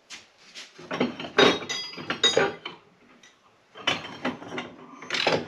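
Metal bar stock and tubing clinking and knocking together as pieces are handled in a storage rack. The clinks come in clusters, some with a short metallic ring, with a brief lull about halfway through.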